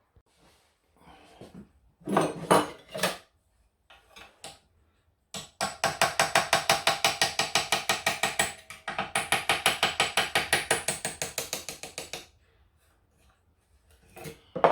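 A few knocks, then a ratchet clicking rapidly and evenly, about eight clicks a second, in two long runs with a short break between them.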